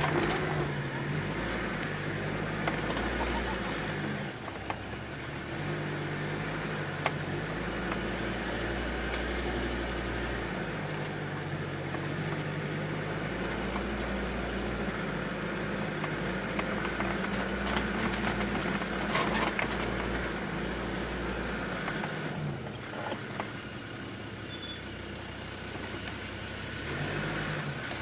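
Land Rover Discovery 2 Td5's five-cylinder turbodiesel engine heard from inside the cabin, driven over a dirt off-road track, its note rising and falling with the throttle. Occasional knocks and rattles come from the body. The engine eases off for a few seconds near the end.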